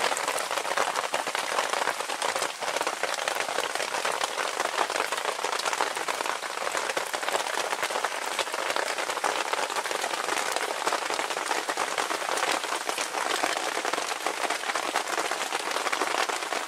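Steady rain falling: an even hiss of fine patter.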